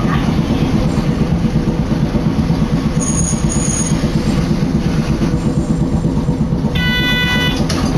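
Sapporo streetcar running between stops, heard from inside the car: a loud, steady rumble of wheels on rails and the running motors. A brief high squeal comes about three seconds in, and a short ringing tone near the end.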